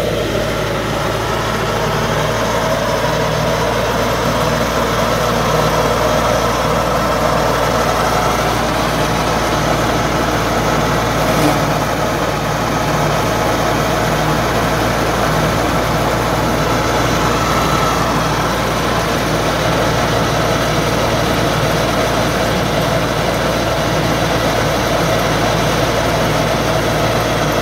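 GM1500A ride-on grass mower with a clippings collector, its engine running steadily and loudly. There is a faint brief click about eleven seconds in.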